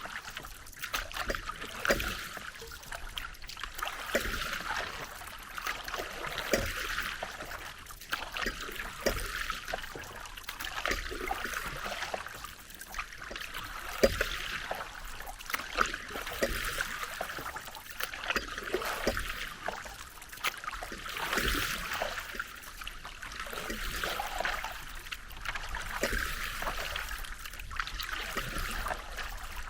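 Paddle strokes in the water, swelling every two to three seconds, with water trickling and dripping off the paddle between strokes and occasional light knocks.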